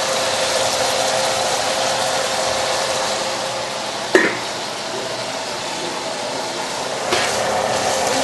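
Steady rushing kitchen noise, with one sharp clink of metal cookware about four seconds in.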